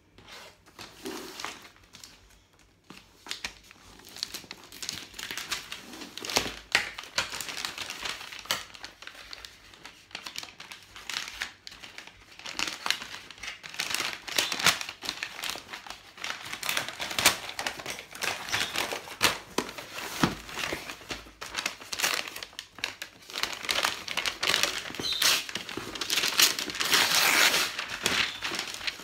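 Brown kraft wrapping paper being folded back and pulled off a cardboard box by hand: continuous crinkling and rustling with sharp crackles. Quiet for the first few seconds, loudest near the end.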